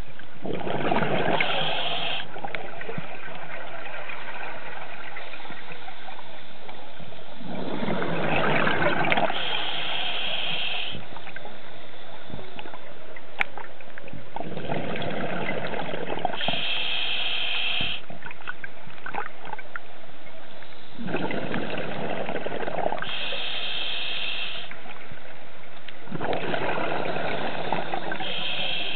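Scuba diver breathing through a regulator underwater. A rush of exhaled bubbles alternates with the hiss of the regulator on each inhale, about every six to seven seconds, five breaths in all.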